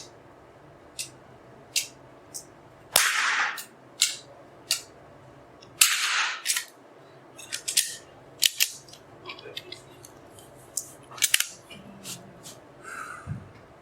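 Shots from a .22 LR Anschutz 1903 match rifle, ringing in an indoor range. The two loudest come about 3 and 6 seconds in, among a scatter of quieter sharp clicks and cracks.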